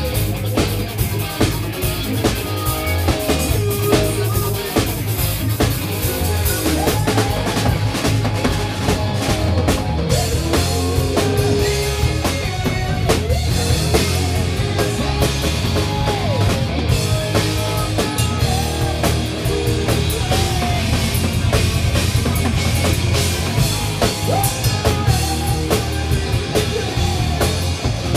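Live rock band playing loud: drum kit with a heavy bass drum, bass and electric guitar, with a voice singing over them.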